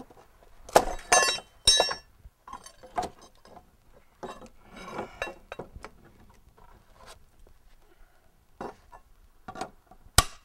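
Steel flat bar prying at a rotten wooden fence board: scattered metallic clinks and knocks as the bar shifts against the wood and nails. A single hammer blow on the bar comes near the end.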